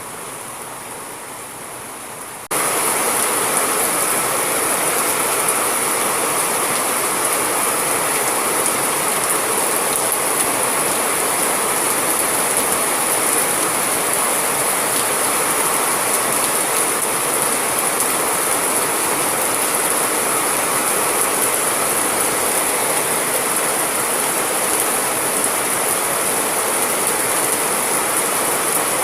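Steady rain noise, a dense even hiss. About two and a half seconds in it cuts suddenly to a louder, brighter rain recording that then holds steady.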